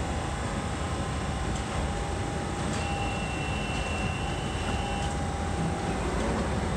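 London Underground Central Line train (1992 Stock) standing at the platform with its doors open: a steady hum over a dense rumble. A higher steady tone is held for about two seconds in the middle.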